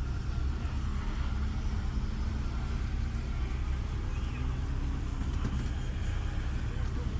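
A motor vehicle engine humming faintly, its pitch rising and falling slowly, under a heavy steady low rumble.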